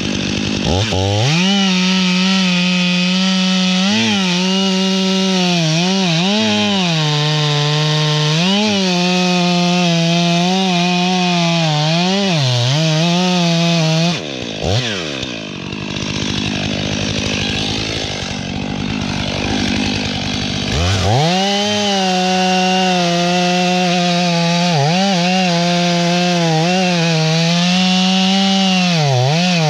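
STIHL MS500i fuel-injected two-stroke chainsaw cutting into a large tree trunk at full throttle, its pitch dipping briefly again and again as the chain bites under load. About halfway through the revs fall away and it runs quieter for several seconds, then revs back up sharply and keeps cutting.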